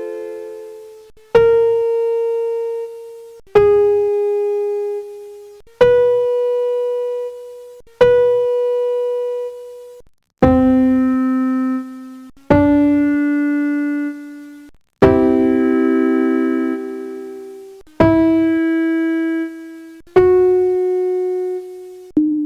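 Electronic organ playing separate notes one after another, about ten in all, a new one every two seconds or so. Each note starts sharply and fades away, and a few sound two pitches together.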